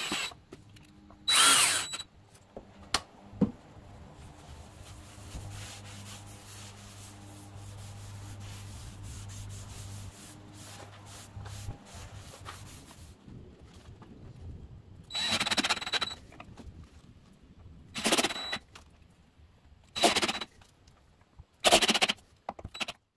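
DeWalt cordless drill-driver spinning in short bursts as it drives screws into a maple wood cabinet: one burst near the start and four more in the last third. In between, several seconds of steady rubbing as the wood is hand-sanded with a sanding pad.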